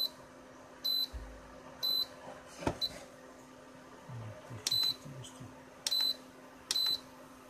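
Portable induction cooktop giving short high beeps, about one a second with a pause in the middle: its warning that it has not yet picked up a load and will not heat, as when it sits empty. A dull knock comes near the middle.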